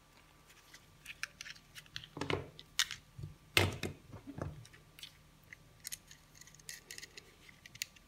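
Scattered small clicks, taps and rustles, with a few louder knocks between about two and four and a half seconds in: a small RF power meter and its cardboard box being handled.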